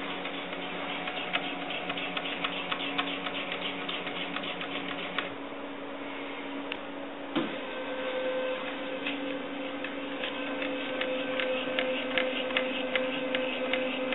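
Stepper motors of a homemade Contraptor mini CNC machine driving a pen plotter head across paper: a steady machine whine with rapid ticking. The whine changes note about halfway through as the moves change.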